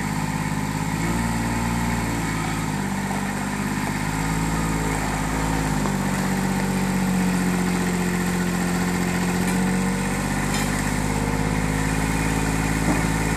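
Mini dumper's engine running steadily, its speed shifting slightly a few times.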